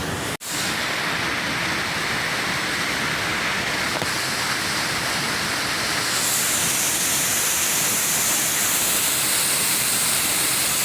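Waterfall: a steady rush of falling water, briefly cut off just under half a second in, and hissier from about six seconds in.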